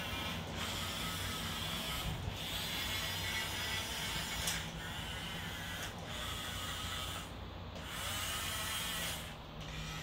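Electric drive motors and geartrains of a Huina 1520 1:18 metal RC wheel loader whirring as it drives and turns. The whir stops briefly about six times between moves.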